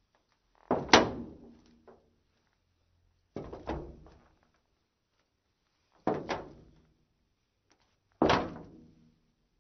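Women's heeled shoes walking slowly on metal: four footsteps about two and a half seconds apart, each a quick double strike that rings and fades.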